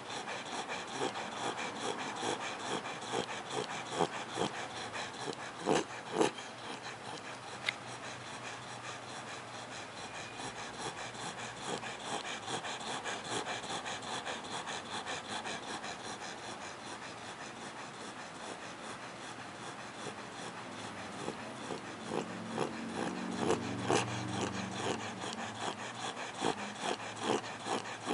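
Two-month-old Fila Brasileiro puppy snoring in deep sleep, snoring like a grown adult, with a few sharp clicks.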